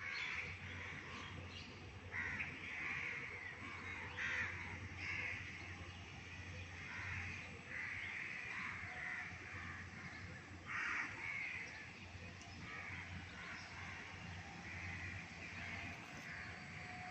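Birds calling over and over outdoors, short harsh calls every second or so, over a faint low steady hum.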